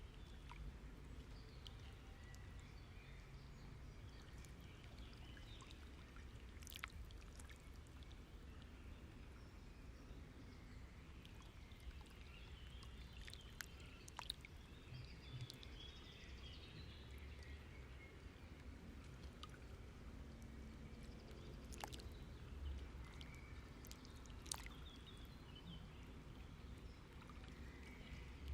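Near silence: faint room tone with low background hiss and a few soft clicks.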